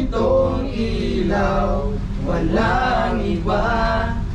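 A group of men singing a Christmas carol medley together, holding long notes that bend up and down in pitch.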